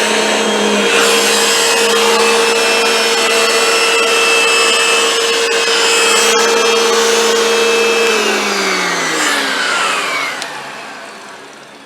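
Hoover WindTunnel 2 bagless upright vacuum running steadily with a motor whine. About eight seconds in it is switched off, and the whine falls in pitch and fades as the motor spins down.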